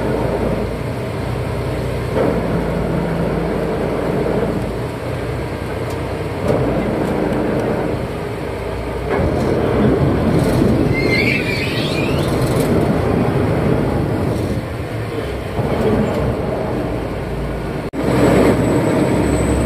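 Canal express boat's diesel engine running steadily under way, a loud low drone with rushing water and wind. A brief wavering high squeal sounds about halfway through, as the folding roof is lowered.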